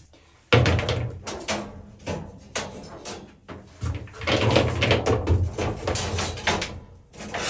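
Sauna stones clacking and knocking against each other and the stainless steel cage of an electric sauna heater as they are lifted out by hand, with a loud knock about half a second in.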